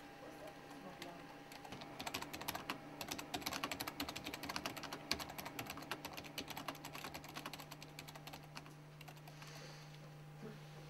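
Fast typing on a computer keyboard: a dense run of key clicks that starts about two seconds in and thins out near the end. A faint steady hum sits underneath.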